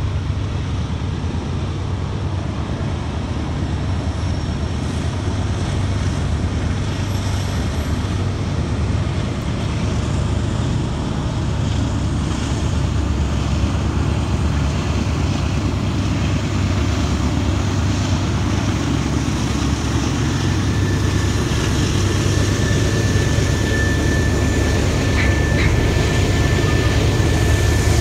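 Low, steady rumble of diesel locomotives on an approaching train, growing gradually louder, with a faint high steady whine joining in about three quarters of the way through.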